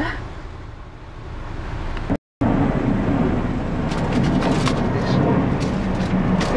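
Truck engine and road noise heard from inside the cab while driving in city traffic. The sound cuts out for a moment about two seconds in, then returns louder, with a steady low drone and a few short ticks.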